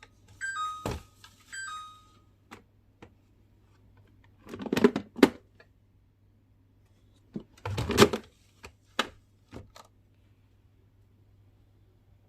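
A kitchen appliance's electronic beep, a falling two-note signal, sounding twice in the first two seconds, followed by knocks and clattering of household items being handled and set down, loudest about five and eight seconds in.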